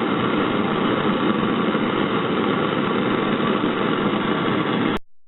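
Steady roar of a burner, unbroken until it cuts off suddenly about five seconds in.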